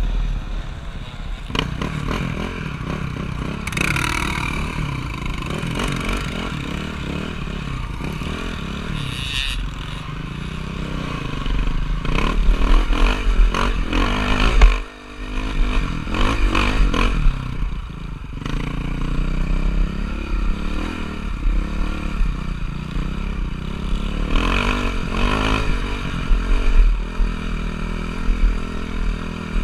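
Motocross bike engine running and revving, its pitch rising and falling with the throttle, with clattering over rough ground. It gets louder for several seconds in the middle, cutting out briefly once.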